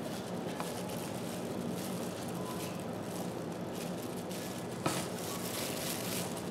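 Pot of pork and butternut squash soup at a rolling boil, bubbling steadily as a ladle skims it. Near the end, about five seconds in, the ladle knocks once against the pot.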